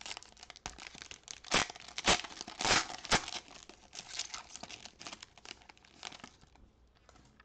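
Foil wrapper of a 2021 Donruss football card pack being torn open and crinkled by hand: a run of sharp crackles and rips, loudest between about one and a half and three seconds in, thinning out and stopping near the end.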